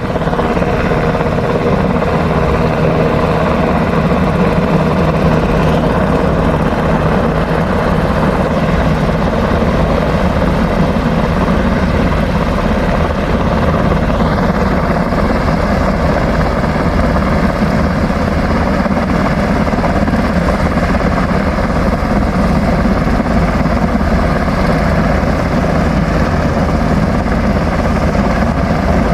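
Rescue helicopter running close by: loud, steady rotor and engine noise, with a higher whine coming up about halfway through.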